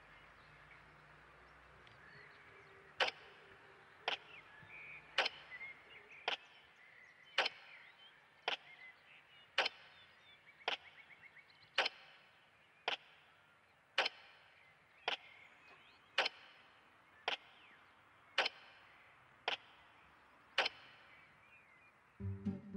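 Sharp, evenly spaced ticks, about one a second, over a faint background hiss; an acoustic guitar starts just before the end.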